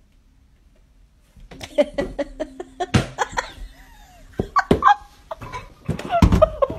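A cardboard tissue box knocking and scraping as a cat with its head stuck in it thrashes about and bumps into furniture: a quick run of sharp knocks starting about a second and a half in, heaviest near the end. Short bursts of a person laughing come in among the knocks.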